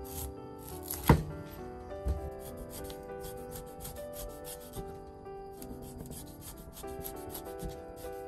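Cleaver slicing the rind off a pineapple on a wooden chopping board: a run of short scraping cuts, with one sharp chop onto the board about a second in, over background music.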